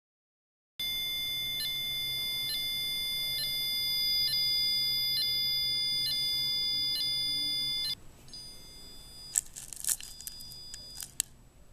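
A steady electronic tone of several high pitches sounding together, with a faint tick about once a second, runs for about seven seconds and then cuts off suddenly. Afterwards a few soft crinkles of cellophane candy wrappers are heard as a hand digs into a glass bowl.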